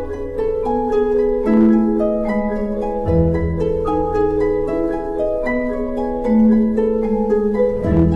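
Chamber orchestra music: a running line of short plucked notes on harp and pizzicato strings over long held low notes that change about every three seconds.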